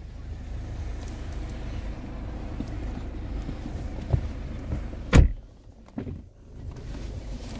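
A steady low rumble, then a single solid thump about five seconds in, like a car door being shut. After it the background goes quieter for a second or so before the rumble comes back.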